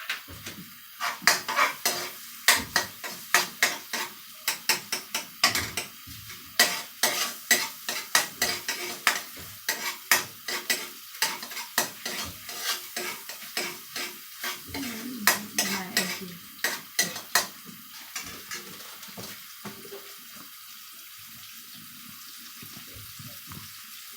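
A utensil clinking and scraping against a pan while garlic is stirred and fried in butter, over a steady sizzle. The clatter stops about 18 seconds in, leaving only the sizzle.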